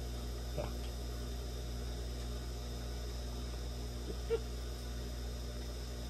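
Steady low hum with faint background noise. Two brief faint squeaks break it, about half a second in and again about four seconds in.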